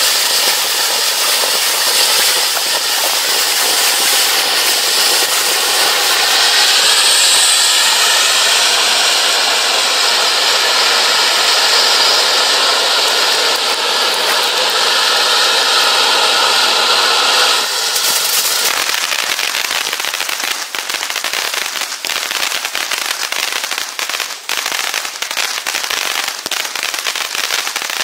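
A Winda 'Dino-Might' consumer firework fountain burning. It gives a steady rushing hiss of sparks with a wavering whistle mixed in from about six seconds in. About eighteen seconds in it switches suddenly to a dense crackling of popping stars.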